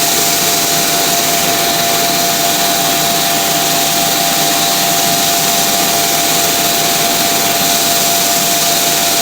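Industrial central vacuum system running: a steady rush of air with a thin constant whine.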